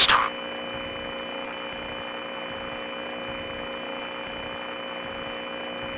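Steady hiss like radio static, cut off in the treble, with several faint steady hum tones underneath.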